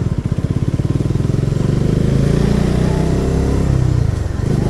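Bajaj Dominar motorcycle's single-cylinder engine running at low speed. Its exhaust beat pulses at first, then evens out and grows a little louder about two seconds in.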